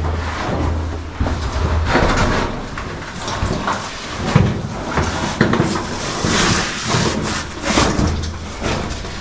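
Irregular scuffing, scraping and shuffling of cavers moving over rock through a tight cave passage, uneven in loudness.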